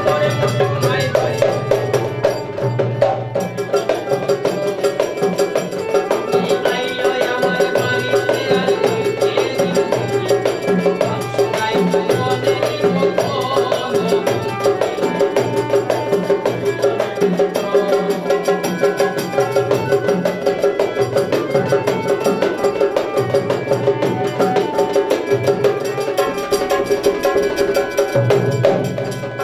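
Bengali folk music: a harmonium holds sustained reedy chords and melody while a two-headed barrel drum (dhol) and small hand cymbals (mandira) keep a brisk rhythm.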